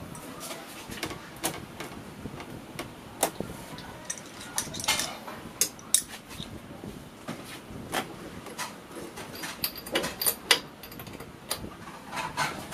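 Metal hand tools clinking and knocking against the scooter's engine as a spark plug wrench and an adjustable wrench are worked onto a spark plug that is hard to turn. The clicks come at irregular intervals.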